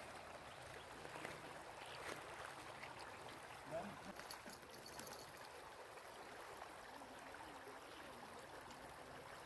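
Faint steady wash of a shallow, stony river flowing, with a short faint rising sound about four seconds in.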